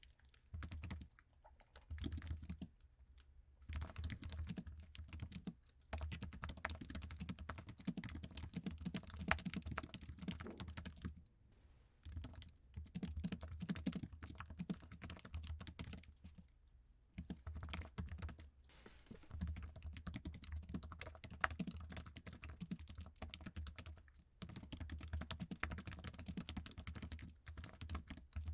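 Fast typing on an iMac's standard Apple keyboard: rapid runs of low-travel key clicks, broken by short pauses several times.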